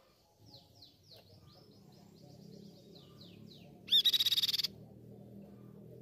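Crescent-chested babbler (tepus pipi perak) singing: a run of quick, downward-sliding whistled notes, then about four seconds in a short, loud, rapid chatter.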